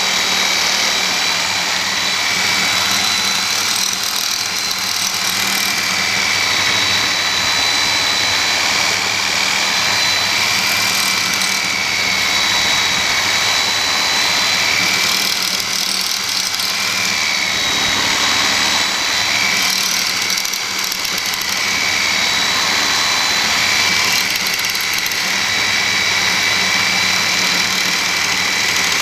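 Porter-Cable reciprocating saw running steadily with a Diablo carbide-tooth blade sawing through a concrete block: a continuous motor whine over the grinding rasp of the blade in the masonry.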